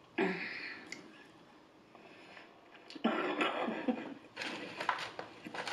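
Close-up eating sounds: chewing and mouth noises in a few irregular spells, with short sharp clicks mixed in.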